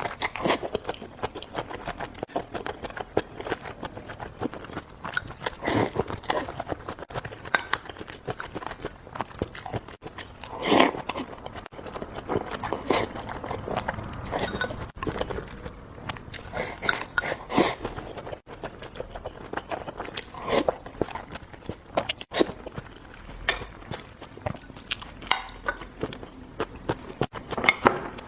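Close-miked eating: biting and chewing crunchy food, with a sharper crunch every few seconds and smaller mouth clicks in between.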